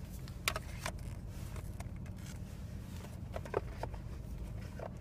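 A cardboard phone box handled by hand: several light clicks and taps of the lid and inserts, the loudest about three and a half seconds in, over the steady low hum of a car cabin.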